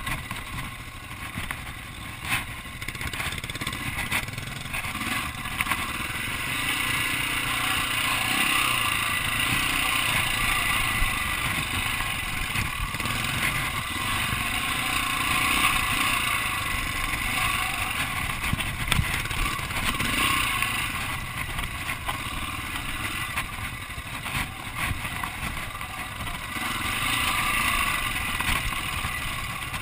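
Off-road motorcycle engine running under load on a rocky singletrack climb, its note swelling and easing every few seconds with the throttle, with a few sharp knocks from the bike over rocks.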